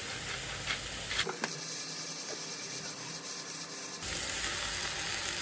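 A hand-twisted glass salt grinder ratcheting as it grinds pink salt, over the steady sizzle of food frying in a pan.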